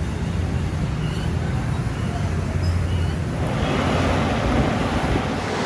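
A steady low machine hum with a noisy rush over it, which broadens and grows louder about three and a half seconds in.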